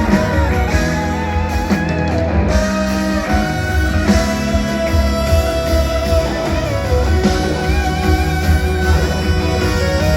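Live band playing an instrumental passage: a wavering lead melody over a steady, heavy bass line.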